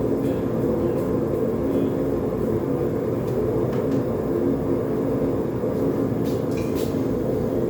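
Propane forge burner running with a steady roar, with a few faint clicks.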